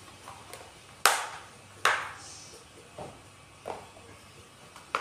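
Sharp clicks and knocks of plastic containers being handled: a clip-lid plastic box and small plastic cups with lids. Five separate clicks, the loudest two about one and two seconds in.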